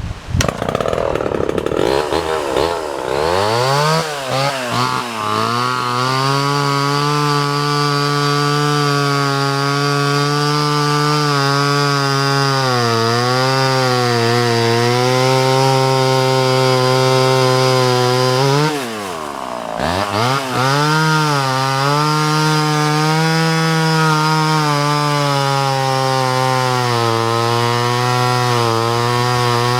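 A vintage Homelite Super XL Automatic chainsaw's two-stroke engine runs. It revs up over the first few seconds and is then held at a steady high speed. About two-thirds through, the throttle drops briefly and the engine revs back up. The saw runs strongly and evenly, in good running condition.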